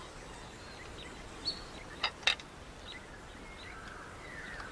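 Quiet outdoor night ambience: a steady low hiss with a few short, high chirps scattered through it, and two sharp clicks close together about two seconds in.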